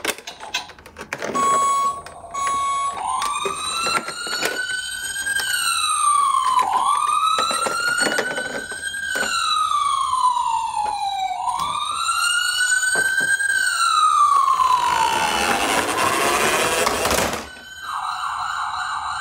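Toy ambulance minicar siren wailing, its pitch rising slowly and dropping quickly, about two and a half times, with scattered clicks over it. A short steady beep comes before it, and a burst of hiss and then a steady buzzy tone follow near the end.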